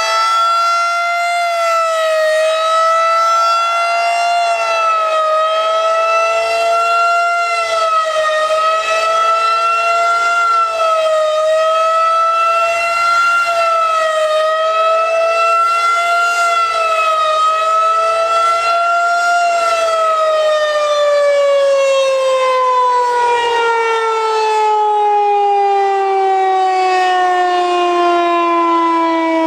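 Federal Signal 2001-130 electromechanical outdoor warning siren sounding a fast wail test signal, its pitch rising and falling about every three seconds. About two-thirds of the way through the rotor loses power and the tone winds down, sliding steadily lower in pitch.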